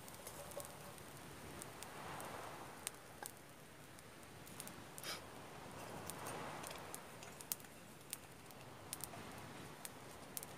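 Faint, scattered crackles and clicks from a small wood campfire under a cooking pot, over a soft background hiss that swells twice.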